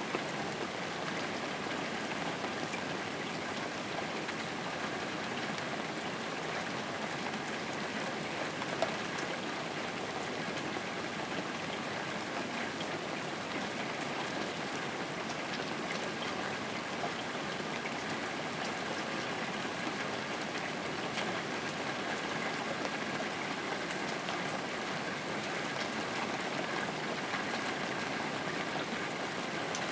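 Steady rain falling: an even hiss flecked with the small ticks of individual drops.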